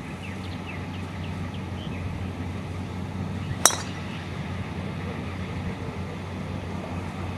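Golf driver striking the ball off the tee: one sharp, metallic crack with a brief ringing tail, a little over three and a half seconds in.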